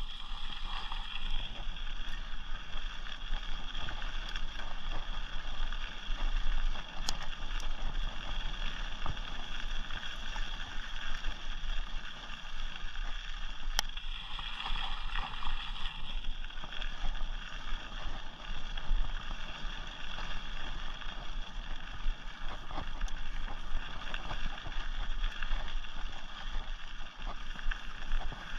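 Rocky Mountain Thunderbolt mountain bike rolling fast on a dirt forest trail: steady tyre and trail noise with constant small jolts and rattles. There are two sharp clicks, a few seconds apart near the middle.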